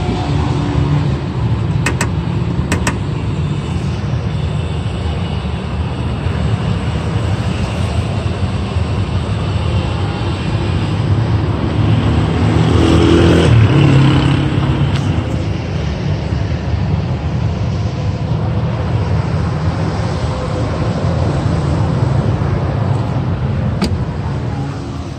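Steady road traffic noise, with one vehicle passing louder about halfway through and a few sharp clicks.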